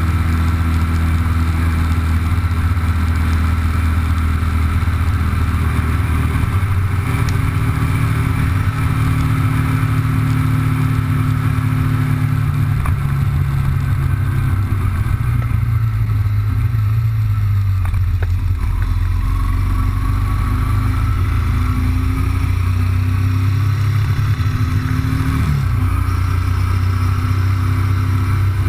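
Motorcycle engine running steadily at road speed, heard from the bike itself; the engine note shifts to a new pitch about a quarter of the way in and changes again near the end.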